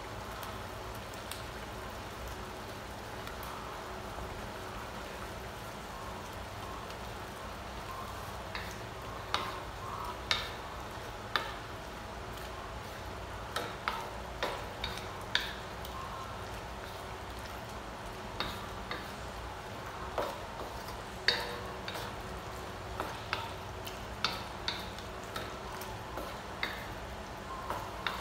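Chicken pieces, bell pepper and onion sizzling steadily in a stainless steel wok. From about nine seconds in, a wooden spatula stirs them, knocking and scraping against the wok at irregular intervals.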